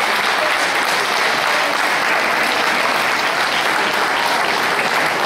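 Crowd of onlookers applauding steadily.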